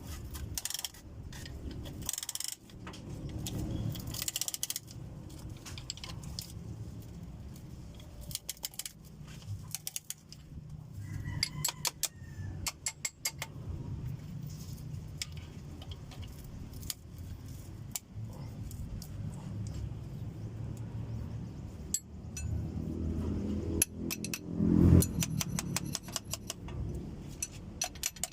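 Light metal clinks and taps of steel parts and tools while a piston in a ring compressor is worked into a cylinder of an Isuzu 4BC2 diesel engine, with quick runs of taps in the middle and near the end.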